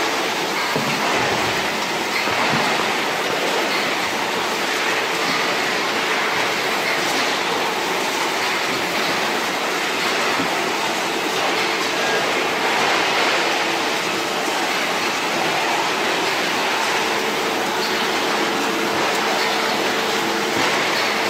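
Steady machinery din of a salmon-processing line running, with a faint steady hum through it.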